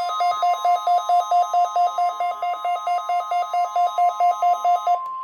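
Midland WR-120EZ weather radio sounding its alert: a rapid pulsing alarm beep, about four a second, over the steady 1050 Hz NOAA Weather Radio warning alarm tone sent for the weekly test. The beeping stops near the end while the steady tone keeps on.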